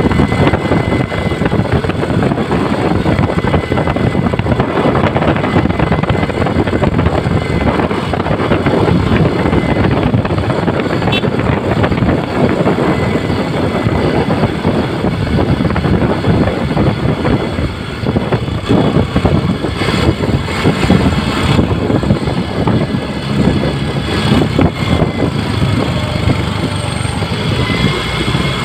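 A motorcycle riding through traffic: a loud, continuous rush of engine and road noise that flickers constantly.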